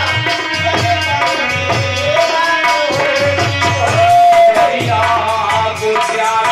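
Devotional kirtan music: a melody sung or played over held notes, with a hand drum keeping a steady beat.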